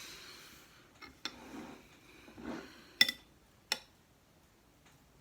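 Dishes and cutlery clinking: a few sharp clinks, the loudest about three seconds in with a brief ring, with soft handling noise between them.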